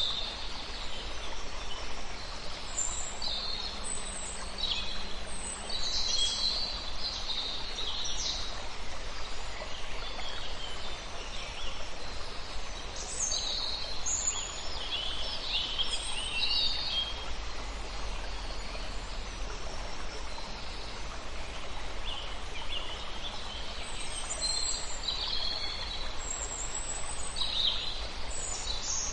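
Wild birds chirping and calling, many short overlapping calls that come in clusters, over a steady background hiss and low rumble.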